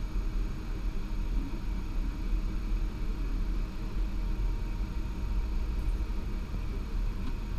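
Steady machinery noise in an Embraer 190 cockpit during engine start: a low rumble with faint steady whine tones above it, holding even throughout.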